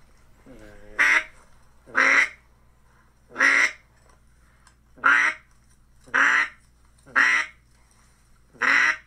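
A series of single duck quacks, about eight in all, spaced roughly a second apart.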